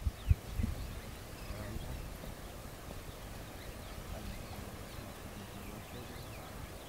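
Outdoor ambience: a low, uneven wind rumble on the microphone with two short low thumps just after the start, and faint scattered bird chirps.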